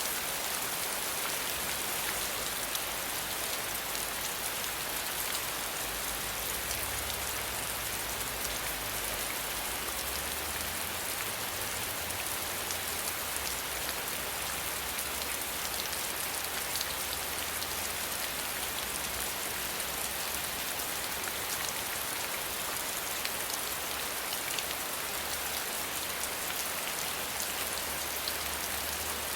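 Steady rainfall, a constant hiss of drops hitting a surface with fine individual drop ticks, at an even level throughout.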